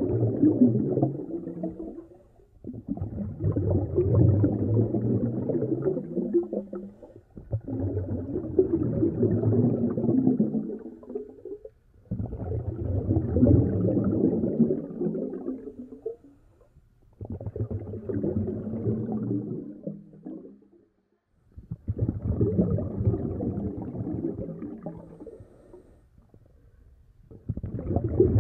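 Low, muffled gurgling rumble of bubbling water, coming in surges of about four seconds with short pauses between them.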